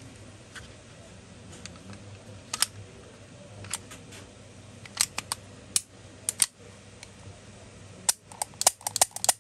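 Sharp metallic clicks and clacks of a Beretta M9A4 pistol being reassembled and handled: the slide going back onto the frame and steel parts seating. Single clicks come every second or so, then a quick run of them near the end.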